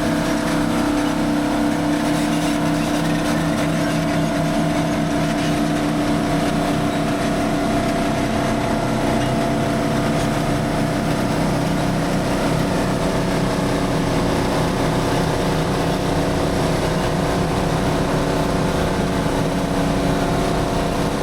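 An engine running steadily at high speed, its pitch held level.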